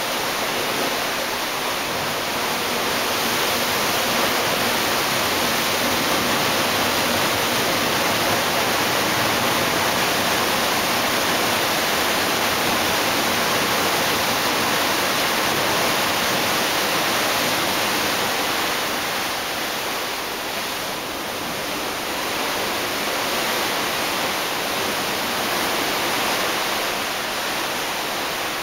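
Steady rushing of sea water along the hull of a ship under way, mixed with wind, a continuous even hiss that eases slightly about two-thirds of the way through.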